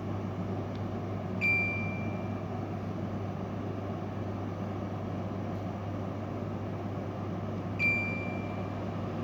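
An LG electric fan gives two short electronic beeps about six seconds apart, each one high tone that fades over about a second, over the fan's steady hum.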